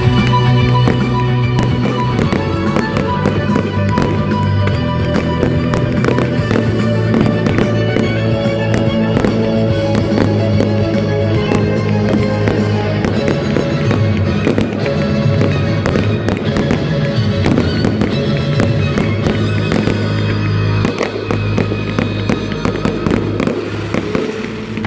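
Fireworks display: many firework bangs and crackles, sometimes several a second, over loud amplified violin-rock music playing through a sound system.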